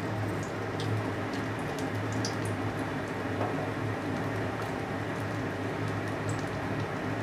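Soybean cutlets sizzling in shallow hot oil in a kadai, the flame just turned off, with a few light clicks and scrapes of a spatula as they are lifted out.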